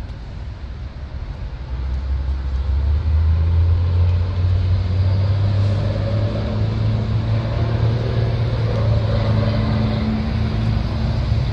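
Diesel locomotives of a Florida East Coast freight train approaching, a deep steady engine drone that swells about two seconds in and then holds loud.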